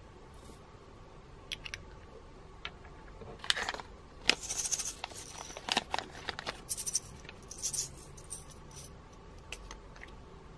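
Small plastic jars of purple seed beads and sequins handled, opened and shaken out, with clicks and a run of rattling from about three and a half to eight seconds in as the beads pour into the clear slime.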